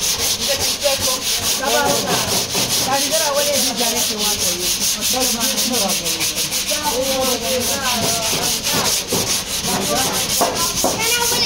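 Sandpaper rubbed by hand over a primed car body panel, in quick back-and-forth strokes about four a second: hand-sanding the primer on the repaired fender before paint.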